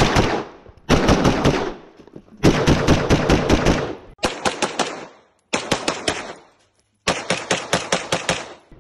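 Rapid gunfire: six strings of quick shots, about six a second, with short breaks between the strings.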